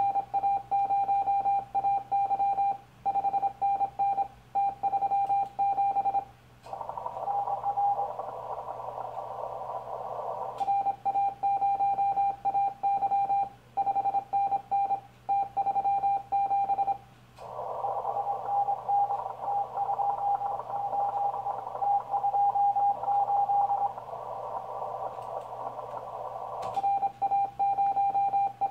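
Morse code from a Yaesu FT-1000MP transceiver calling CQ on the 40 m band: a steady, fairly high tone keyed fast in dots and dashes. It is sent in three runs, and between them come two stretches of several seconds of hiss through the narrow CW filter while the receiver listens for replies.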